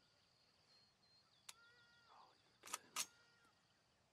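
Near silence with a faint, steady high hum, broken by a single tick about a second and a half in and two sharp clicks a third of a second apart near the three-second mark.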